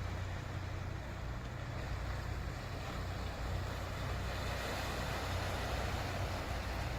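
Sea waves washing against a harbour breakwater: a steady rushing hiss over a low rumble, swelling a little about four seconds in.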